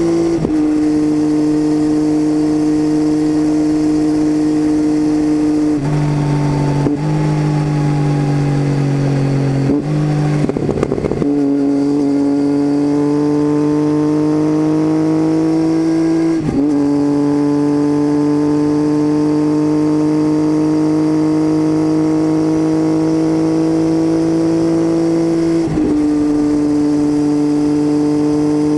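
Triumph Tiger 800 three-cylinder engine through an unbaffled titanium Leo Vince exhaust, heard on board while riding: a steady drone at road speed. The note breaks briefly four times, about 6, 10, 16 and 26 seconds in, typical of gear changes, and climbs slowly in between as the bike pulls in gear.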